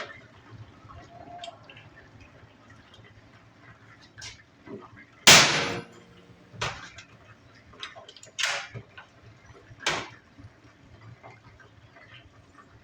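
Hand work on a truck's battery and starter cabling: a string of sharp metallic knocks and clicks, with one much louder sudden noise a little over five seconds in and three more strong knocks after it.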